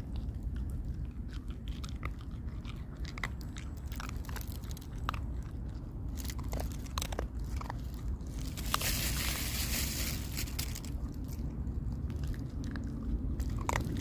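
A dog chewing and crunching food, with irregular sharp crunches over a steady low rumble. There is a stretch of hiss for a couple of seconds about two-thirds of the way through.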